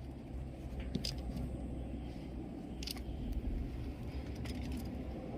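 Steady low rumble of outdoor seaside background noise, with a few light clicks about one, three and four and a half seconds in.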